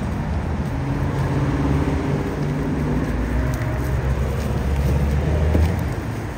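Road traffic and running vehicle engines: a steady low rumble with a droning hum that shifts a little in pitch, swelling about five seconds in and easing off near the end.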